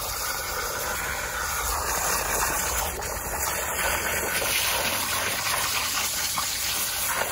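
Garden hose nozzle jetting a steady stream of water into wet soil, a gushing hiss as it washes away the mud.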